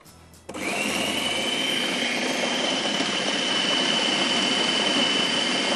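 Electric food processor switched on about half a second in, its blade grinding a chicken mince and spice mixture into a paste. The motor runs steadily with a high whine.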